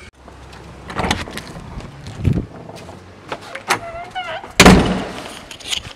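A door being handled: scattered clicks and knocks, then one loud thud about three-quarters of the way through.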